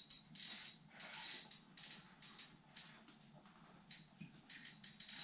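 Spinning reel on a short ice-fishing rod, clicking and buzzing in short, irregular bursts with brief gaps between, as line is worked against a heavy fish on the line.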